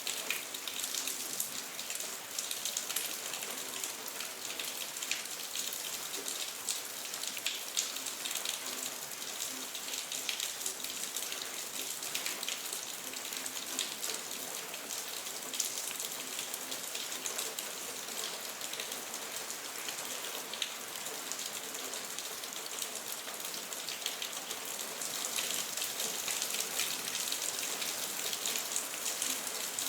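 Steady rain falling, a dense hiss of drops hitting a surface, growing slightly heavier in the last few seconds.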